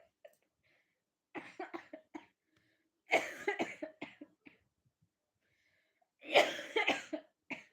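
A person coughing in three short bouts, with one more brief cough near the end.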